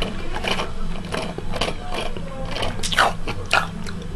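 Juice sucked through a straw from a carton, with several short noisy slurps; the loudest comes about three seconds in.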